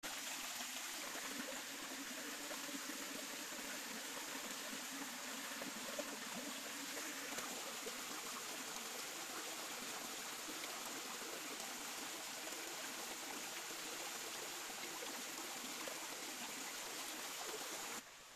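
A small forest stream running steadily over rocks, an even rush of water that cuts off suddenly near the end.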